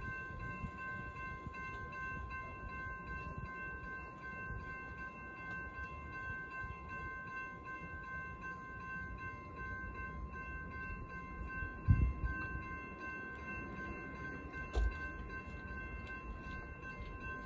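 Railroad grade-crossing warning bell ringing steadily with a high, repeating tone, the signal that a train is approaching, over a low rumble. Two brief thumps come in the last third.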